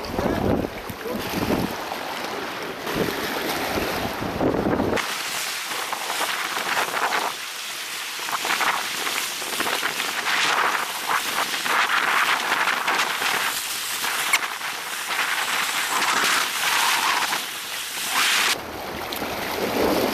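Wind buffeting the microphone over small waves washing against shoreline rocks. The low wind rumble drops away about five seconds in, leaving a steady hiss of water and wind, and comes back near the end.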